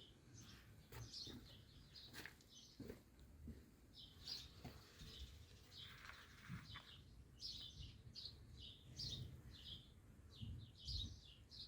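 Sparrow chirping faintly: short, high, falling chirps repeated in quick runs.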